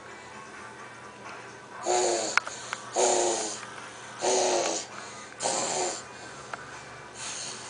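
A baby making four breathy, excited vocal sounds, each about half a second long and about a second apart.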